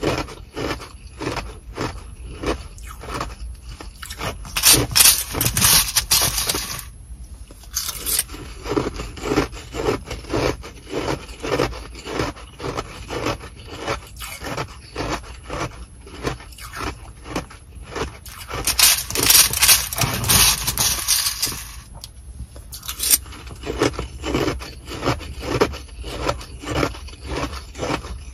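Close-up chewing of Sonic nugget ice, a steady run of crisp crunches about two to three a second. Twice there is a couple of seconds of plastic spoon scraping through the ice and the plastic bag crinkling as more ice is scooped.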